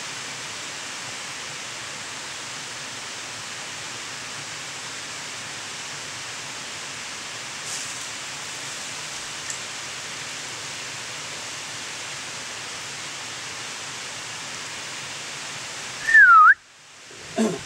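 Steady, even hiss of outdoor background noise. Near the end, a loud whistled call dips in pitch and swings back up. Then comes a sudden gap and a short, lower sound.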